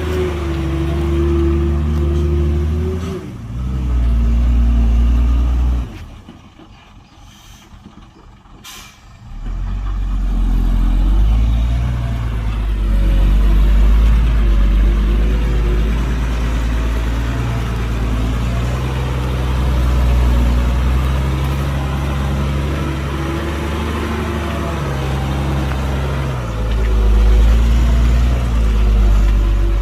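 Heavy diesel engines of earthmoving machinery, a bulldozer and dump trucks, working with a deep rumble. It drops away briefly about six seconds in, with two sharp clicks, then comes back and runs steadily under load.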